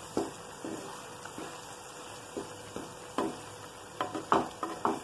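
Wooden spatula stirring and scraping thick prawn masala around a non-stick frying pan in irregular short strokes, the strongest about four seconds in, over a faint steady sizzle.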